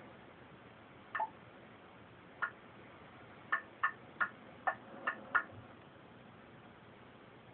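About eight short, high chirps in an uneven run, most of them close together about three to five and a half seconds in, played from a television speaker and picked up across the room with a low hiss under them.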